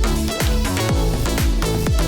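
Electronic dance music with a steady kick-drum beat, about two beats a second, and sustained synth tones.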